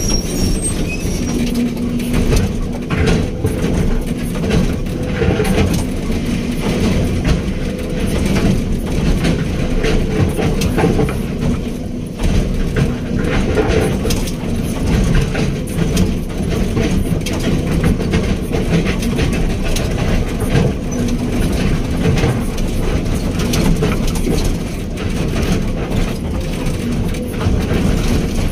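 Excavator's diesel engine running steadily under work, with irregular metallic clanks and rattles throughout.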